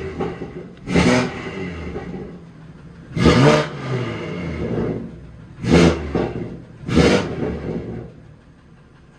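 BMW M3 with a sport exhaust being revved in five quick throttle blips while parked, each rev falling back to idle. The third is held a little longer. Near the end the engine settles to a quiet idle.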